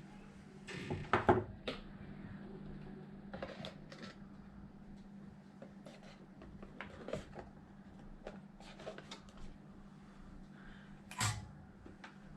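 Scattered light clicks and taps of soldering tools and small parts being handled at a workbench, loudest about a second in and again near the end, over a steady low hum.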